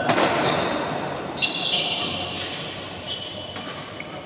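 Badminton rally: a racket hits the shuttlecock hard at the start in a jump smash, followed by three more shots about a second apart, with shoes squeaking on the court floor between them.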